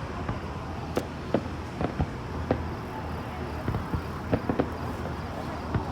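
Fireworks bursting: about a dozen sharp, irregularly spaced pops and bangs over a steady background noise.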